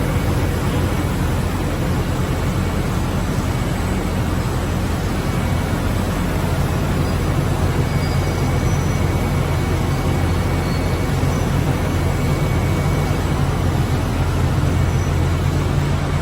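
Dog-treat production line machinery running steadily: a constant loud mechanical drone with a low hum beneath.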